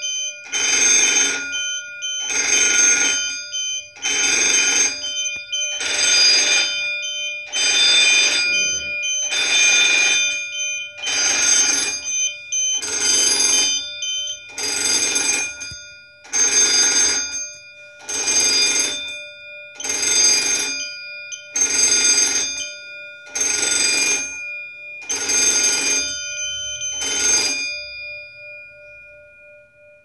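Electric fire alarm bell, driven by the Napco GEM P-801 panel's bell output, ringing in repeated bursts during a fire alarm. The bursts come about one every second and three-quarters and each lasts about a second, with the gong ringing on between them. The bursts stop about 27 seconds in and the gong's ring fades out.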